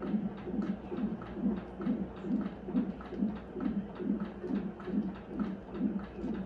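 Fetal heart monitor's Doppler speaker playing the baby's heartbeat: a steady, even whooshing pulse at about two and a bit beats a second, roughly 140 beats a minute.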